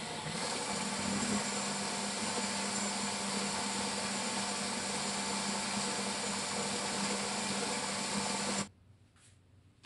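Electric countertop blender running steadily as it mixes banana cake batter, its motor hum stepping up slightly just after the start, then switched off abruptly near the end.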